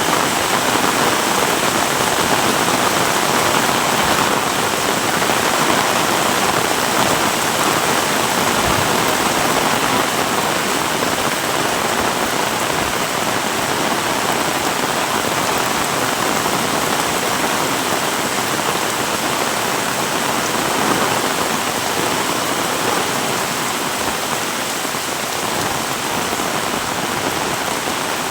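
Heavy rain falling in a dense, steady downpour, easing slightly toward the end.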